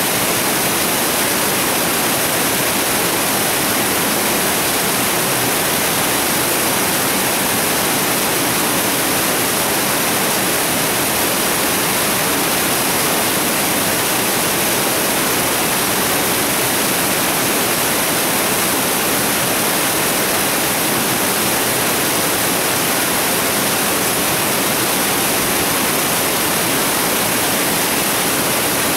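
Steady rush of a mountain stream cascading through a rocky gorge, an even, unbroken hiss of water.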